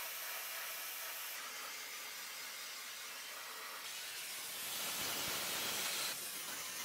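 Sandblaster blasting the metal body with compressed air and abrasive: a steady hiss that grows a little louder about five seconds in.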